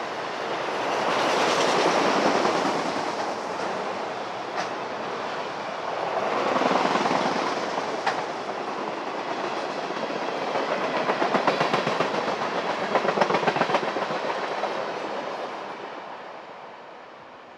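Train cars rolling past, wheels clacking rhythmically over the rail joints. The sound swells and ebbs, then fades away near the end.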